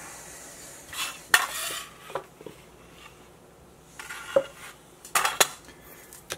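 Metal bench scraper scraping and knocking on a stone countertop as rolled biscuit dough is scraped up: a few short scrapes and clacks, the loudest about a second and a half in and again about five seconds in.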